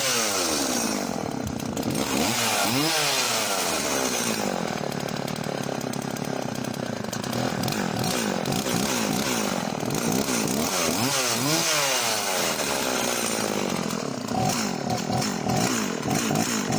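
Husqvarna Rancher 50 two-stroke chainsaw running, its engine speed rising and falling over and over as the throttle is worked.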